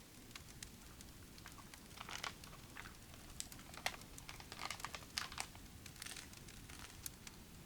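Faint crinkling and rustling with scattered small clicks, as of something being handled, in short bursts about two seconds in, around the middle and near six seconds.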